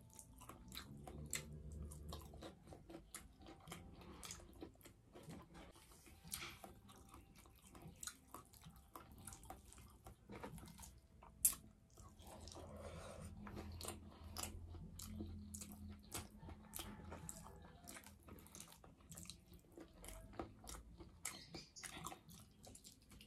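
Close-up chewing of boiled vegetables, fish and rice eaten by hand: quiet, scattered wet mouth smacks and clicks.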